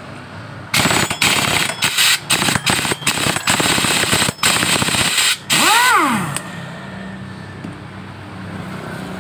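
Impact wrench hammering loose the front pulley (variator) nut on a Yamaha Soul GT scooter's CVT, in several loud bursts with short gaps. Near the end comes a short whine that rises and falls.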